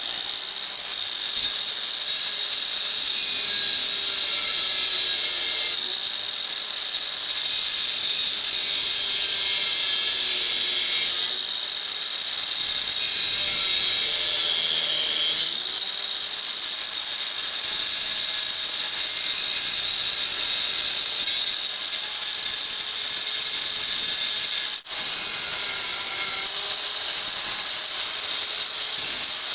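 A grinder running continuously with a steady, rattling mechanical noise, dipping for a moment about 25 seconds in.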